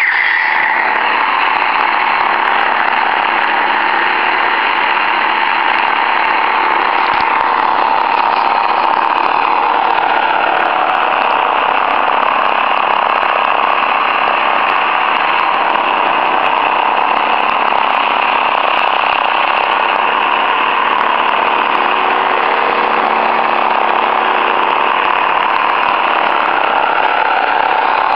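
Several lightsaber hilts humming together from their sound boards: a steady electronic hum with several tones layered over one another.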